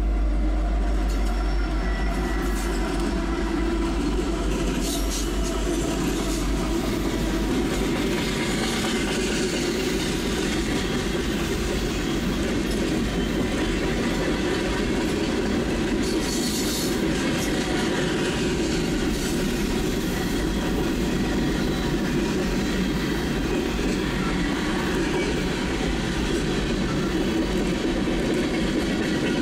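Norfolk Southern freight train passing close by. Its diesel locomotives give a deep rumble over the first few seconds, then loaded hopper and tank cars roll past with a steady wheel-on-rail rumble, and there is a brief high wheel squeal about halfway through.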